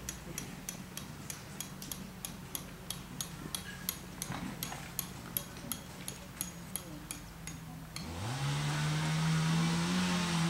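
A quick series of sharp clicks, about four a second. About eight seconds in, a small motor starts up with a rising hum and settles into a steady whir.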